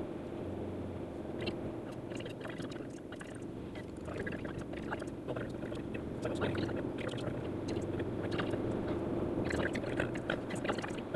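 In-car driving noise played back four times fast: a steady low hum of engine and tyres, with a dense run of rapid ticks and chatter above it that grows a little louder about halfway through.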